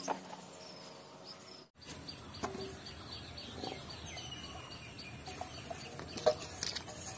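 Small birds chirping, with a thin steady high whine and a few sharp clicks, the loudest near the end.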